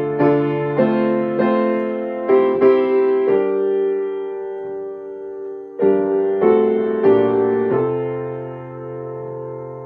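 Piano playing slow chords, each struck and then left to ring and fade, with one long held chord in the middle.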